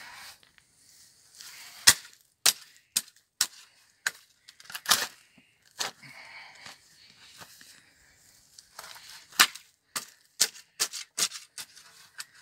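Spade digging into clumpy garden soil: the metal blade is driven in underfoot and clods are lifted and turned, giving an irregular run of sharp scraping clicks and gritty crunches.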